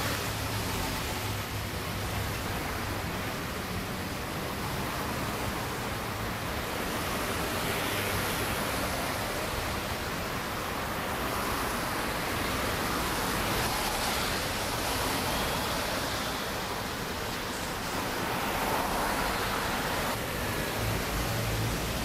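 Steady, even noise of city street traffic, with no distinct events standing out.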